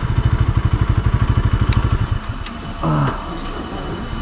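Motorcycle engine running at low speed with a steady, even pulse; about two seconds in it drops to a quieter, lower running as the bike slows. A brief pitched toot sounds about three seconds in.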